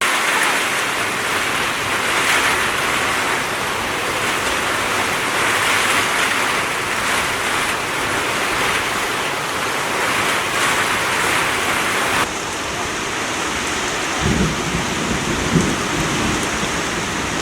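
Heavy rain falling, a loud steady hiss, beginning abruptly. Near the end come several low irregular rumbles.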